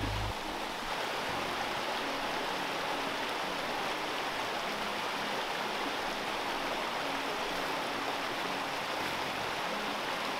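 Small forest brook running over rocks: a steady rush of water.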